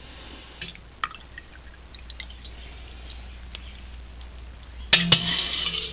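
Whey dripping and splashing as cheese curds are ladled into a cheesecloth, with scattered small clicks of the ladle and a louder burst of noise about five seconds in.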